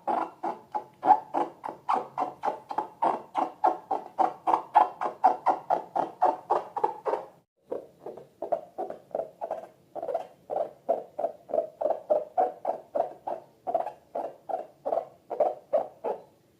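Slime being squished by hand over and over, about three to four short squishes a second, with a brief break about halfway through.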